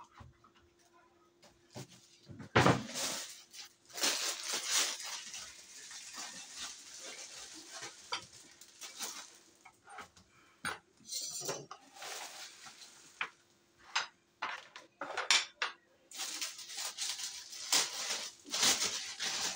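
Cutlery and dishes clinking, knocking and scraping in scattered, irregular strokes, with a louder clatter about two and a half seconds in.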